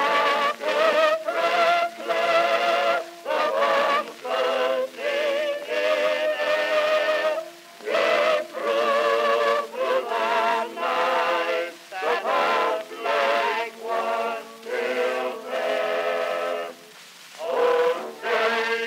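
Music with sung vocals, phrases of a second or so with wavering, vibrato-laden notes and short breaks between them.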